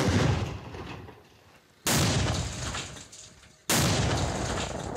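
Small Semtex high-explosive charge detonating against sheet metal: three sharp bangs about two seconds apart, each dying away in a low rumble.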